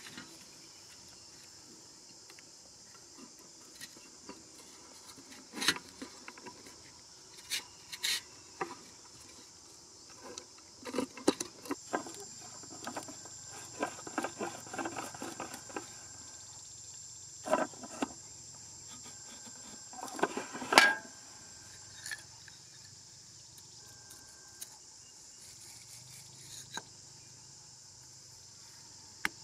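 Insects chirring steadily in the background, with scattered sharp clicks, knocks and rustles as hands work bamboo sticks, string, a plastic bottle and a handsaw blade; the loudest knock comes about two-thirds of the way through.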